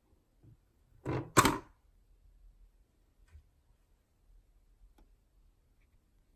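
Plastic cat flap swinging and clattering shut as a cat pushes through it: a short rattle about a second in, then a sharper knock, followed by a few faint ticks.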